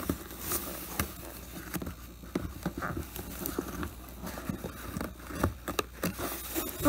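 A hand and arm rummaging inside a homemade vending-machine box under its paper flap, feeling for a squishy: irregular rustling and scraping with scattered light knocks and clicks.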